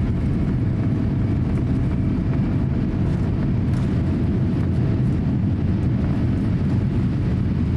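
Cabin noise of a Boeing 787-8 on its takeoff roll, the engines at takeoff power: a steady, deep roar.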